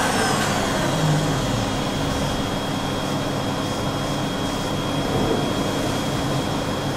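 CNC milling machine running, with a steady high-pitched spindle whine over an even mechanical noise.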